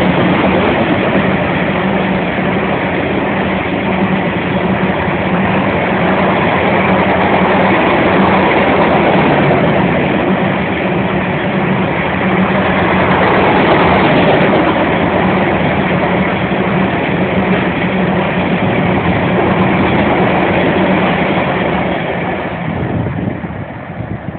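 A freight train, a CSX grain train, rolling past on the rails: a loud, steady rumble and clatter of the cars' wheels, with a low steady hum that is strongest in the first few seconds. The noise drops off shortly before the end.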